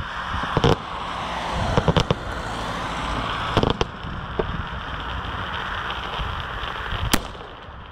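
Aerial firework shells bursting at a pyrotechnic display: several sharp bangs spaced a second or more apart, the sharpest near the end, over a steady crackle from the burning stars.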